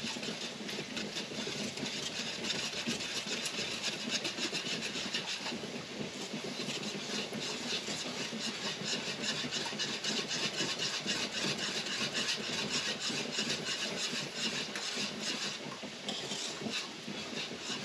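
Metal whisk stirring briskly through a thick strawberry rhubarb jam mixture in a large stockpot, scraping the pot in a rapid, steady rhythm.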